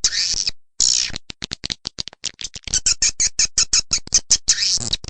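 Edible-nest swiftlets twittering: long falling chirps, then a rapid run of short chirps in the middle, then falling chirps again. This is the kind of call used to lure swiftlets into a nesting house.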